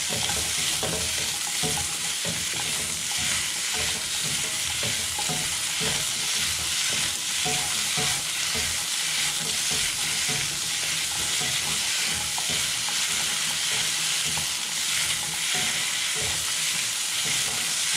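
Zucchini sizzling in a hot wok while being stir-fried, with the steady sizzle of oil broken by frequent scrapes and clatter of the spatula against the wok.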